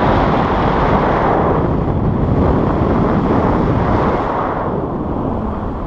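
Loud wind rushing and buffeting over the camera's microphone, from the airflow of a paraglider in flight. It eases off slightly near the end.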